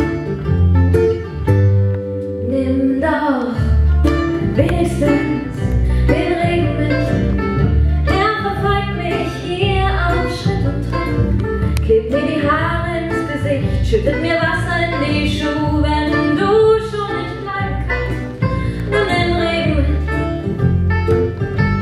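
Live folk song with a woman singing over acoustic guitar, banjo and plucked double bass. The instruments play alone at first, and the voice comes in about three seconds in.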